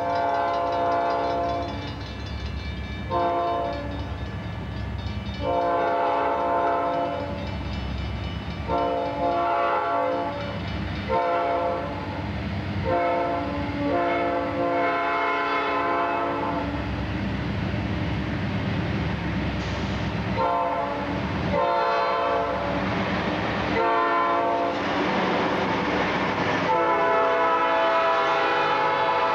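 Norfolk Southern diesel locomotive's air horn sounding a series of long and short blasts for a grade crossing as the train approaches, with the last blast held long as the locomotive passes near the end. Beneath it, the engine runs and the wheels rumble on the rails.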